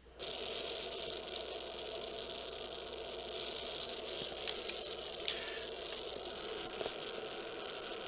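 Shortwave receiver static: a steady hiss from an RTL-SDR receiver demodulating upper sideband on the 20-metre amateur band. It starts suddenly as the mode switches to USB. No station comes through, only band noise, with a few faint clicks.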